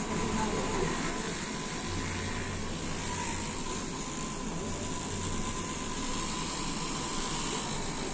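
Handheld electric massager running with a steady buzz, its low hum swelling and easing as it is worked over the head and shoulders.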